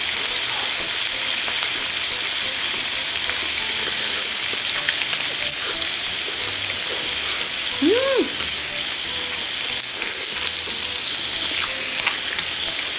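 Slices of marbled beef ribeye sizzling on an electric tabletop grill pan: a steady frying hiss with small crackles. A short hummed tone rises and falls about eight seconds in.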